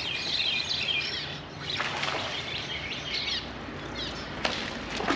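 Small birds chirping and twittering in quick, repeated high calls.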